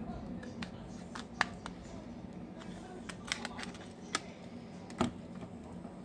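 Irregular small clicks and snaps from the plastic back cover of a Samsung Galaxy M22 being worked off by hand, its clips releasing around the edge, with the sharpest snaps about a second and a half in and about five seconds in. A low steady hum runs underneath.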